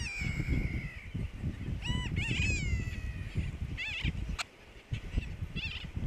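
About five high-pitched seabird calls from a nesting colony, the longer ones sliding down in pitch, over a fluctuating low rumble.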